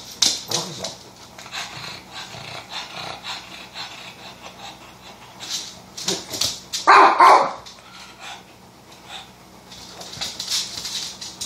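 A Pekingese's claws tapping and clicking on a wood floor as it hops about on its hind legs begging for a treat, with one loud bark about seven seconds in.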